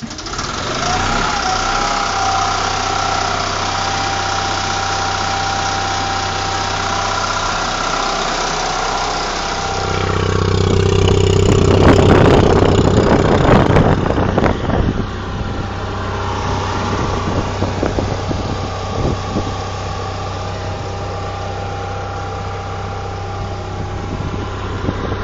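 Standby generator engine starting with a brief rising whine as it spins up, then running steadily. About ten seconds in it grows louder, with a few seconds of rattling, then settles back to a steady run.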